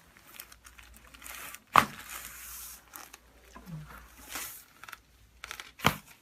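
Rustling and crinkling as a patient turns over on a chiropractic table, with two sharp clicks, one about two seconds in and a second near the end.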